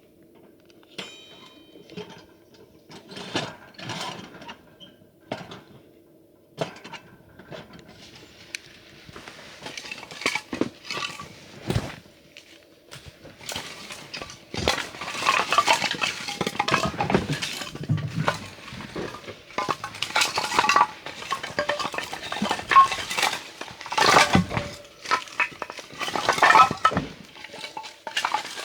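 Dishes and utensils being handled, with repeated clinks and clatters that grow busier and louder in the second half.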